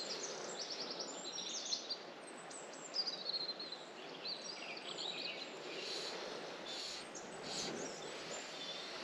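A small songbird singing high, quick chirping phrases and trills over the steady rush of river water.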